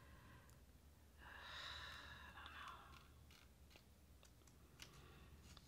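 Near silence with one soft sigh, a breathy exhale lasting about two seconds, starting a second in, then a few faint clicks.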